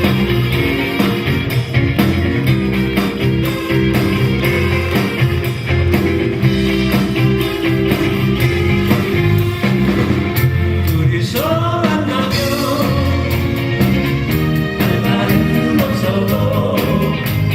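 Live rock band playing a song, with guitar, keyboard, bass and drums, and a singing voice over the band.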